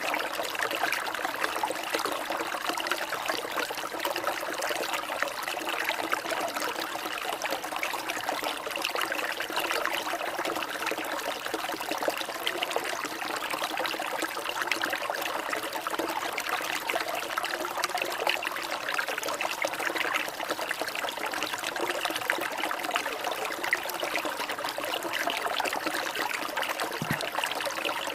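Water trickling and splashing steadily, an even, unbroken babble.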